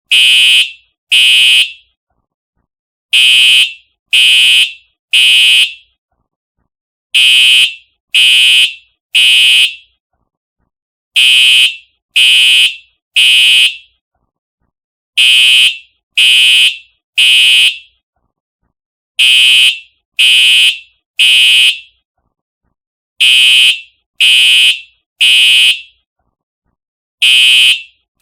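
Simplex TrueAlert fire alarm horn sounding the temporal-three evacuation pattern: three loud half-second horn blasts a second apart, then a pause, repeating about every four seconds.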